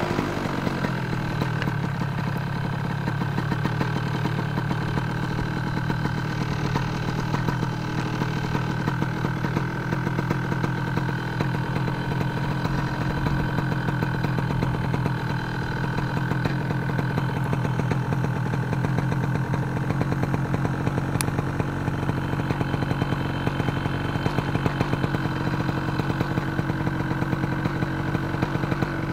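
Two-stroke paramotor engine idling steadily, settling down from a slightly higher speed in the first second.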